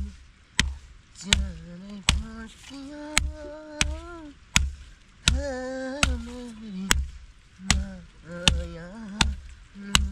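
Steady chopping with a blade, a sharp knock with a dull thud about every three quarters of a second. Over it a person sings or hums a slow melody of long, gliding notes.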